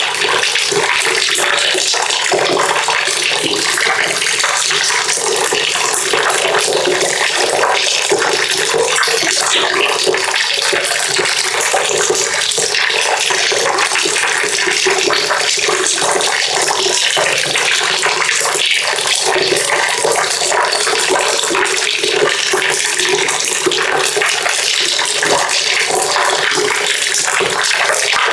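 Water pouring steadily into a bucket: a continuous splashing gush with no pauses or change in flow.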